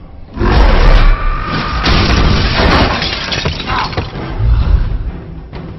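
Action-movie scene audio, which comes in suddenly about a third of a second in: loud crashing and breaking sound effects over film music.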